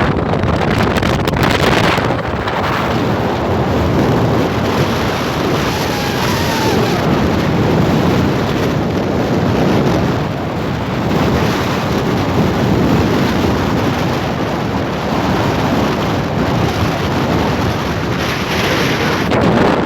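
Wind buffeting the microphone in a loud, steady rushing, with waves washing against the shore beneath it.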